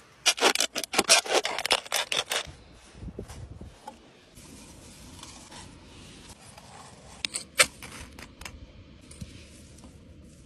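Small metal object scraped hard back and forth on rough concrete, about six strokes a second for a couple of seconds. Then quieter rustling, with a few sharp clicks.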